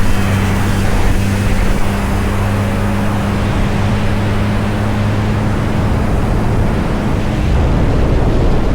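Snowmobile engine running at a steady pace under way, a constant drone mixed with the rush of the track and wind.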